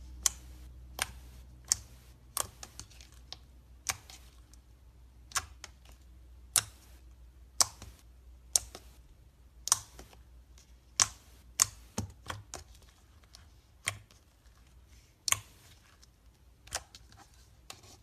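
Slime being squished and poked by hand, giving irregular sharp popping clicks about once a second, some in quick clusters.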